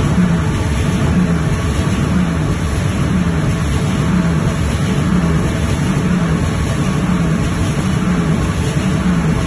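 Veneer reeling machine running steadily as it winds a sheet of dried veneer onto its reel. A loud, even machine noise, with a low hum that pulses at a regular beat.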